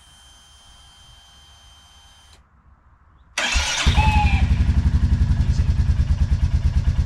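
A click and a faint steady whine for about two seconds, then, about three and a half seconds in, the Royal Enfield Meteor 350's single-cylinder engine is started and catches at once. It settles into a steady idle with an even beat.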